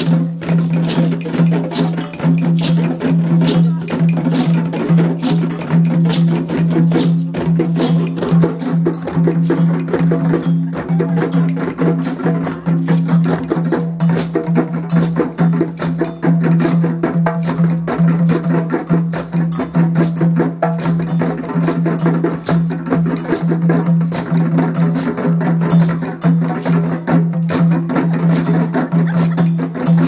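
Djembe drumming: a dense, steady rhythm of sharp hand strokes, with a steady low tone sounding underneath.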